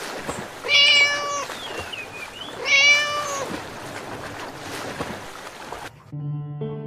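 A cat meowing twice, two long drawn-out meows with a fainter high cry between them, over a steady hiss. Background music comes in near the end.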